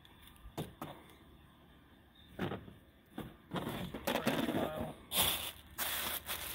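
A few light knocks from handling, then plastic wrapping rustling and crinkling from about three and a half seconds in, as an item is pulled out of a cardboard box.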